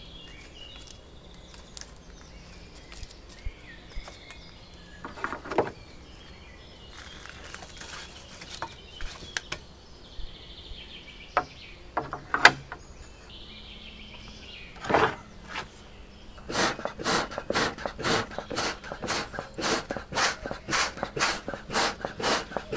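A hand bellows pumped in quick, even puffs, about two or three a second, blowing air into a cast iron pan of burning charcoal, starting about two-thirds of the way in. Before that come a few sharp clinks and knocks of tongs and charcoal lumps in the pan, with birds chirping in the background.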